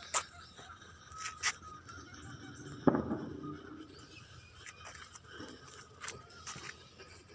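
Burning firework powder in a homemade pipe rocket engine, giving scattered pops and crackles with one sharp, loud crack about three seconds in.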